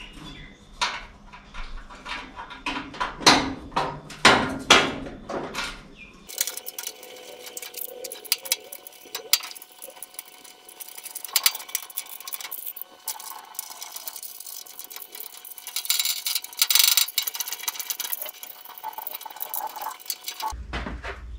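Irregular metallic clinks, knocks and rattles of sheet-metal covers and small hardware being handled and fitted in place at a car's inner fender.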